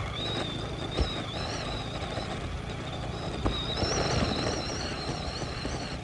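Motorcycle, a KTM Duke 200 with its single-cylinder engine, running steadily at road speed, with wind noise on the microphone. A thin high whine wavers in pitch throughout, and there are a couple of brief knocks, about a second in and midway.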